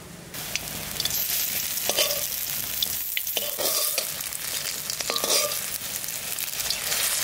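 Bitter gourd leaf and lentil-paste fritters sizzling in hot oil in an iron wok, starting suddenly about a third of a second in. A flat metal spatula scrapes and taps against the pan several times as they are turned.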